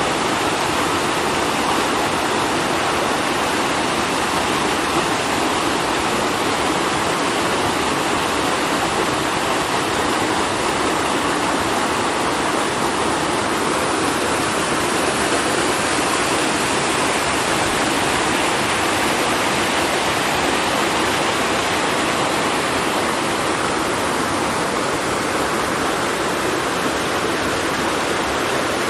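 Small waterfall and stream rushing steadily over rocks.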